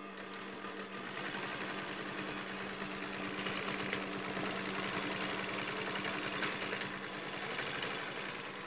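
Typical GC6240 twin-needle industrial sewing machine running and stitching continuously: a rapid, even chatter of needle strokes over a steady motor hum.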